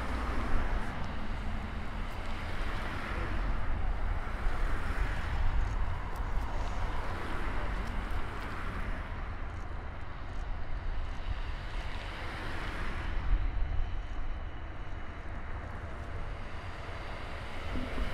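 The distant, steady rumble of a Boeing E-3D Sentry's four CFM56 turbofans as the aircraft taxis, with wind buffeting the microphone.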